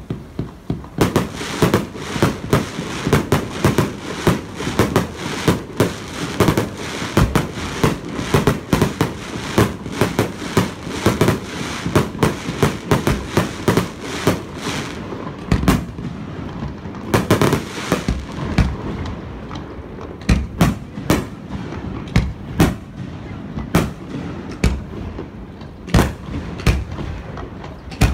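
Fireworks going off: a rapid barrage of bangs starts about a second in, then thins out to separate, spaced bangs through the second half.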